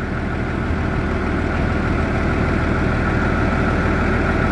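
A large engine idling steadily, with an even low rumble and a faint steady high tone over it, growing slowly a little louder.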